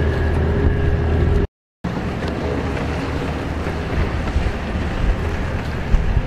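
Racing jet skis running at speed, with wind on the microphone; the sound cuts out for a moment about a second and a half in, then picks up again.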